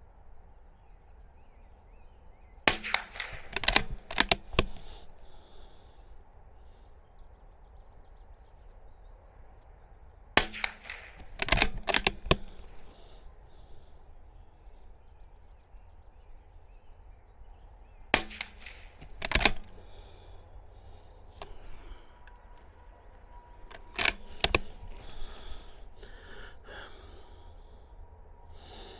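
Suppressed .22 LR bolt-action rimfire rifle (Bergara B14) fired four times, several seconds apart, each shot followed by a quick run of sharp clicks as the bolt is worked to chamber the next round.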